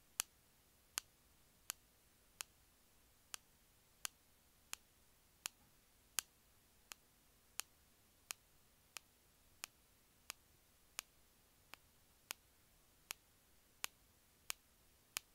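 A steady series of sharp single clicks, about three every two seconds, some louder than others, over a near-silent background.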